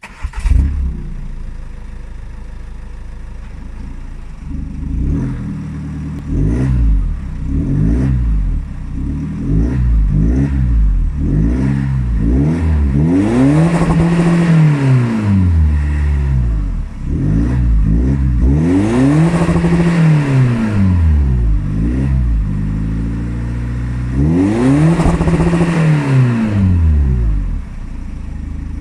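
Ford Focus ST TDCi's four-cylinder turbodiesel engine, heard through a 3-inch Mongoose DPF-back exhaust, starting with a sudden burst and settling into idle. It is blipped several times, then revved three times, each rev rising and falling, before returning to idle.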